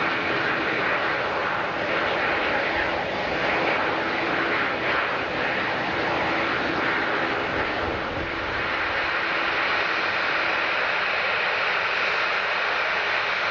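Airliner engines running: a steady rushing noise with a low steady hum in it that drops away about ten seconds in.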